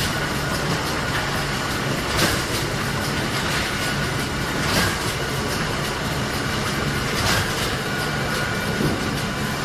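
Automatic box sealing and wrapping machine running steadily, with a brief burst of noise about every two and a half seconds, three times, as it cycles.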